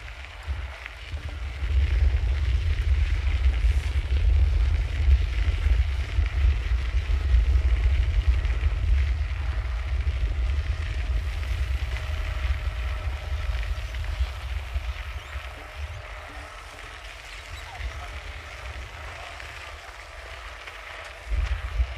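Wind buffeting the microphone of a moving bicycle, a fluttering low rumble that grows stronger about two seconds in and eases in the second half, over a faint steady hiss of the surroundings.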